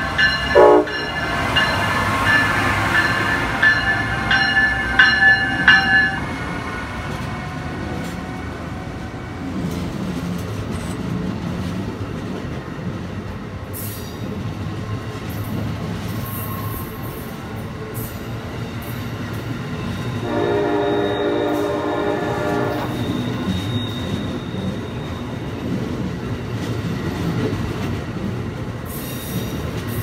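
An Amtrak ACS-64 electric locomotive's multi-chime horn sounds at close range: one long blast that breaks into several short blasts and stops about six seconds in. Then come the steady rumble and clatter of Amfleet passenger cars rolling past, with a lower, steady tone heard for a couple of seconds about two-thirds of the way through.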